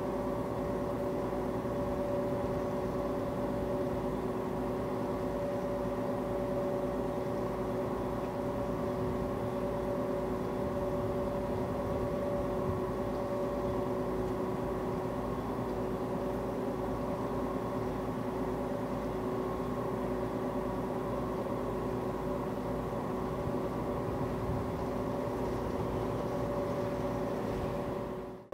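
Steady drone of a cable ferry's drive machinery under way: a low rumble with several steady whining tones, unchanging, dropping away abruptly at the very end.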